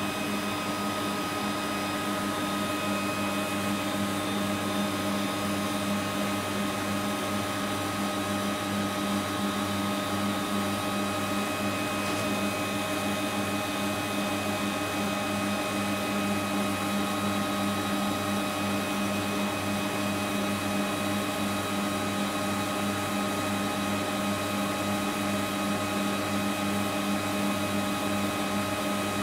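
AdjustMate 100R peristaltic tubing pump running steadily, its small motor and rollers giving a constant hum as it pumps liquid through the tubing.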